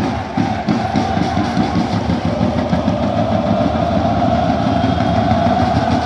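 Crowd of football supporters singing together over a fast, steady low beat.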